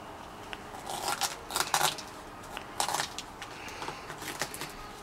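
Kitchen knife cutting and prying into the thick, spiky husk of a durian: several short bursts of cracking and splitting, about a second apart, as the tough husk is forced open.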